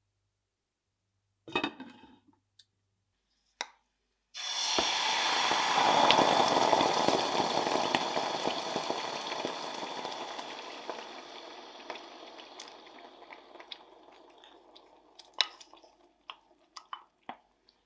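A brief splash of water around a potato in a pot, then passata poured into a pan of hot olive oil with a garlic clove: a sudden loud sizzle that slowly dies away as the sauce cools the oil. Near the end come scattered small pops and taps of a wooden spoon in the sauce.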